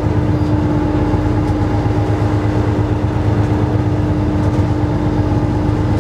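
Lobster fishing boat's engine and deck machinery running with a steady low drone, with a constant hum held on one note over it.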